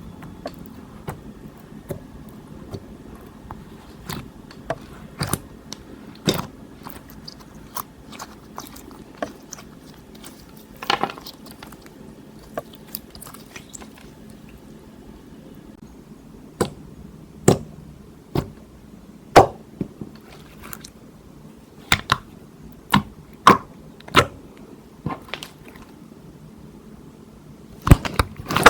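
Slime being mixed and squished, with irregular sharp wet pops and clicks, sparse at first and louder and more frequent in the second half.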